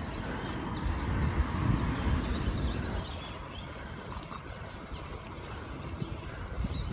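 Wind buffeting the microphone and road rumble from a bicycle in motion, heavier for the first three seconds and easing after. Birds chirp briefly and sparsely in the background.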